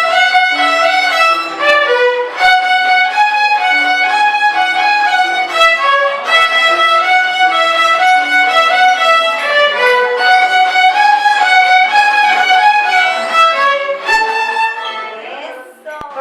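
Violin music: a melody of distinct bowed notes over a lower second line, fading near the end.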